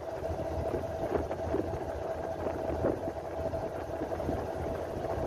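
A fishing boat's engine idling steadily: a low rumble with a steady hum over it.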